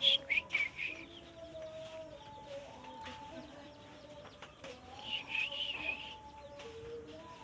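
Yellow-vented bulbul (trucuk) singing: a quick run of chirpy notes right at the start and a warbled phrase about five seconds in.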